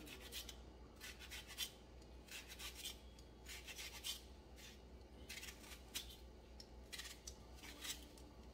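Kitchen knife slicing through an onion held in the hand: a faint, irregular series of short crisp cuts, about one or two a second.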